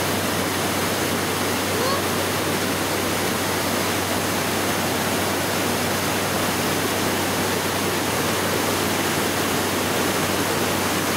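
Steady, unbroken rush of water from Maria Cristina Falls, a tall twin-drop waterfall, and the white-water rapids at its foot.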